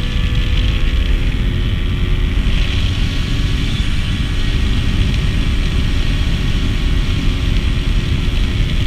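Rieju SMX 50cc two-stroke motorcycle engine running at a steady, high speed under way, its pitch drifting only slightly. Heavy wind rumble on the microphone.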